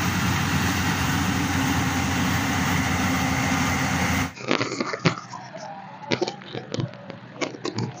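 Yanmar YH850 rice combine harvester running steadily while harvesting, a dense continuous machine noise. About four seconds in it cuts off abruptly, leaving a much quieter stretch of scattered clicks and knocks.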